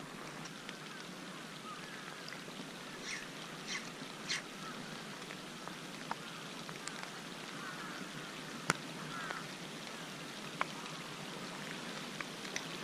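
Steady outdoor wash of wind and sea water along a harbour breakwater, with a few sharp clicks scattered through it and some faint short high chirps.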